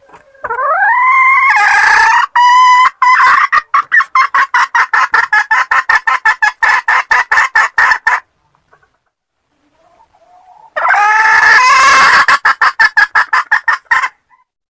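Red junglefowl hen cackling, twice: each bout opens with a rising drawn-out note and breaks into rapid repeated clucks, about five a second. It is the call used as a lure to draw wild chickens into a trap.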